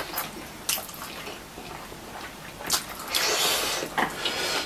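Chow mein noodles being slurped and chewed, with a few small wet clicks and then a longer, hissy slurp from about three seconds in.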